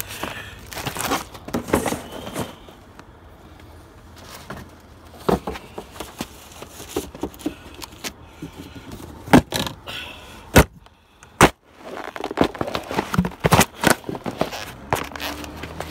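Cardboard shoe boxes being stomped flat under boat shoes: crunching, creasing and scraping against the pavement, with several sharp snaps around the middle and a quieter stretch a few seconds in.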